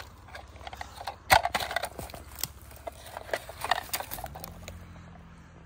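Irregular clicks and knocks of hard toy cars being handled over rocks, the sharpest about a second in. A low steady hum comes in near the end.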